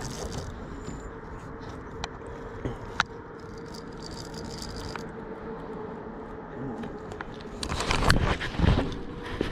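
Low steady hum with a few faint clicks, then loud rustling and bumping about eight seconds in as the camera is handled and moved on the boat.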